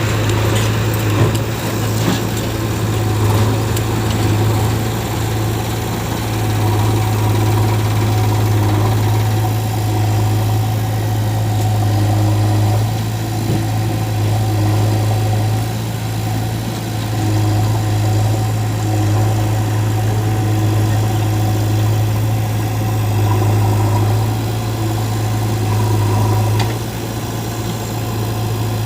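Diesel engine of a backhoe loader running steadily at working speed, its hum swelling and easing a little every few seconds as it works.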